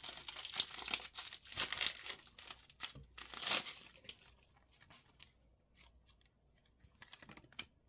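Foil wrapper of a Panini Prizm basketball card pack crinkling and tearing open, loudest about three and a half seconds in. After that come fainter ticks and rustles of cards being handled.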